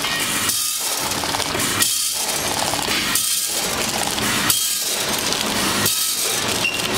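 Small vertical form-fill-seal packing machine running, a steady mechanical clatter that repeats in a regular cycle about every 1.3 seconds as its sealing jaws close on each bag.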